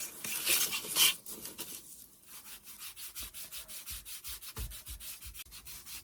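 Hand rubbing or sanding strokes on a small wooden craft piece: a few louder scrapes in the first second, then quick, even back-and-forth strokes, about six a second, from about two seconds in.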